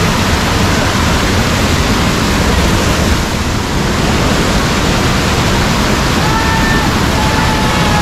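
Waterfall in full monsoon flow: a loud, steady rush of heavily falling water.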